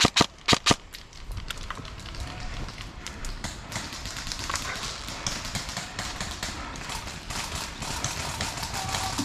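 Airsoft gun firing a rapid string of sharp shots, about four in the first second, ending a burst that began just before. A steady noisy background with scattered faint clicks follows.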